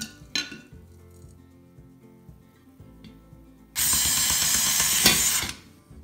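Cordless drill-driver running for nearly two seconds, starting a little past the middle, to back out a ceiling fan blade screw. A couple of sharp clicks come near the start, and soft background music runs underneath.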